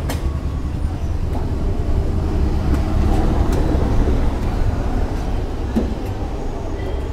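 Steady low vehicle rumble in the background, with a few light metallic clicks as nuts are turned by hand onto the motorcycle's clutch hub.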